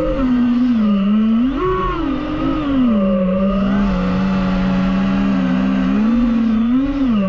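DJI FPV drone's motors and propellers whining, the pitch rising and falling smoothly as the throttle changes, steadier for a few seconds in the middle, over a steady low rumble.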